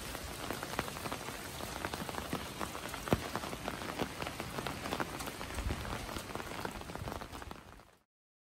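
Rain falling: a steady patter with many scattered sharper drops, fading out near the end.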